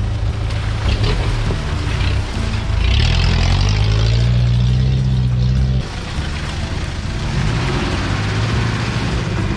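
Off-road 4x4 engines labouring through a shallow rocky stream crossing, the engine note rising under throttle for a few seconds before dropping off suddenly about six seconds in, with water splashing under the tyres. Background music plays underneath.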